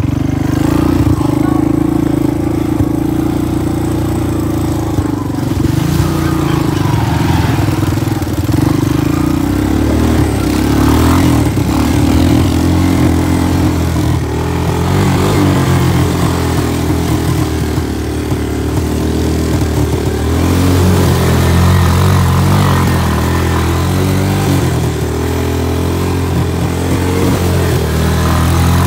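Honda 250 ATV engine running continuously, its engine speed rising and falling as it is ridden along a muddy trail.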